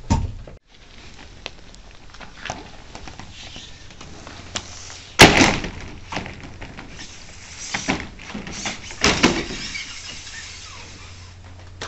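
Corrugated PVC roofing panels being handled and shifted into place, the flexible plastic sheets clattering and banging against each other and the roof frame. The loudest bang comes about five seconds in, with smaller knocks again near eight and nine seconds.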